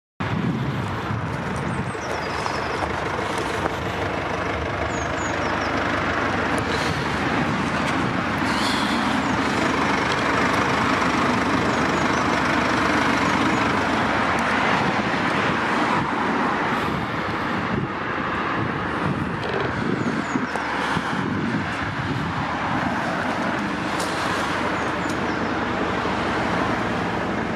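Steady noise of road traffic passing nearby, with no clear single vehicle standing out.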